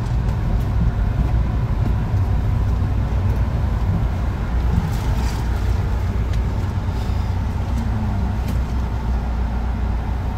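Steady low rumble of road and engine noise inside the cabin of a moving passenger van.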